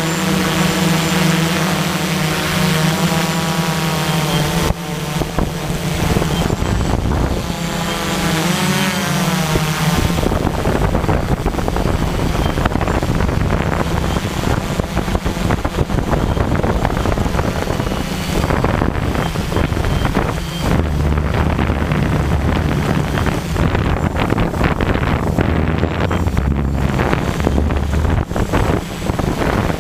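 Tarot 690S hexacopter's brushless motors and propellers running, their hum wavering in pitch as the motor speeds change, with wind noise on the microphone. After about ten seconds the sound turns rougher and noisier.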